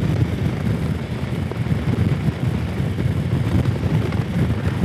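Harley-Davidson Street Glide's V-twin engine running at a steady cruise, with wind rushing over the microphone.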